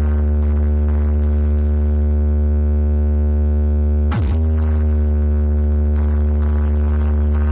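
DJ speaker boxes playing a bass sound-check track: a loud, deep, sustained bass tone with a stack of steady overtones, dipping sharply in pitch and recovering about four seconds in. Light hi-hat ticks come about twice a second at the start and again near the end.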